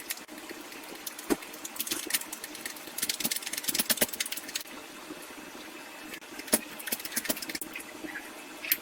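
A rubber-metal silent block being pressed into a car's front suspension control arm: a run of sharp metallic clicks and creaks, densest between about three and four and a half seconds in, with single sharp clicks near one and a half seconds, six and a half seconds and the end, over a faint steady hum.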